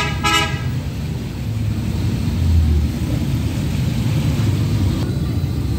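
Potato fries deep-frying in a large wok of hot oil, a steady sizzle over a low, steady rumble.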